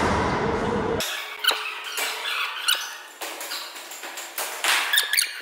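Badminton rally: rackets smacking a shuttlecock in sharp hits about a second apart, several in quick succession near the end, with sports shoes squeaking on the court floor. A muffled background noise fills the first second and then cuts off abruptly.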